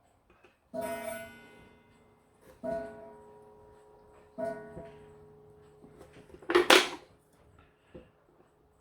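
French slate clock's strike ringing three times, about two seconds apart, each note ringing on and dying away. A loud short rattle of handling follows near the end.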